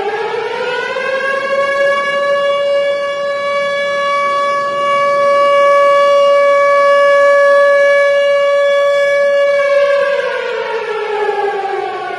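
Tornado warning siren wailing. Its tone finishes rising in the first second or so, holds a steady high pitch for about eight seconds, then winds down, falling in pitch near the end.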